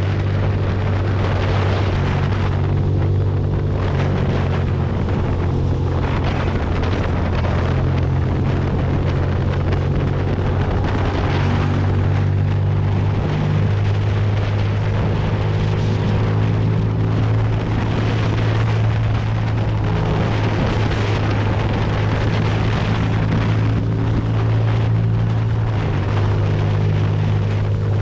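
Ducati Monster's V-twin engine running at a steady cruising speed, its pitch stepping up and down slightly every few seconds, with wind rushing over the microphone.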